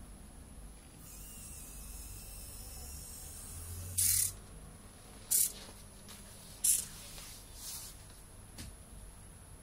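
Small homemade wheeled robot's drive motors running in brief spurts: three short bursts of high, noisy sound about a second and a half apart, then two fainter ones.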